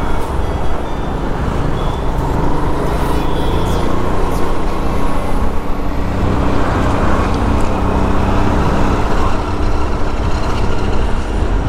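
Road traffic: vehicle engines running steadily in city traffic, with a heavy low rumble.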